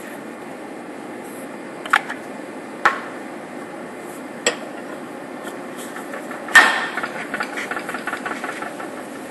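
Aerosol spray can being handled and shaken: a few sharp clicks, then a loud clack about six and a half seconds in followed by a couple of seconds of fast, fading rattling ticks. A steady shop hum runs underneath.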